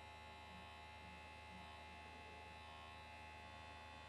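Faint, steady electric hum of a children's battery toothbrush's vibration motor, buzzing inside an aluminium foil takeaway tray floating in water.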